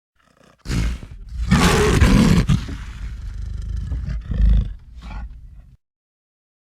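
Designed creature-monster roar sound effect for the Lizard: a growling roar that swells to its loudest in the first couple of seconds, surges again, and cuts off abruptly.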